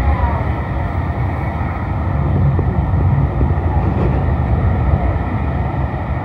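Locomotive tender and passenger coaches of a steam-hauled train rolling past at close range: a loud, steady rumble of wheels on the rails.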